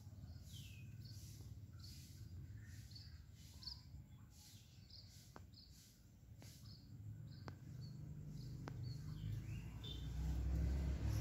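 Faint outdoor ambience of small birds chirping in short high calls, with a few sharp ticks. A low rumble builds up over the last few seconds.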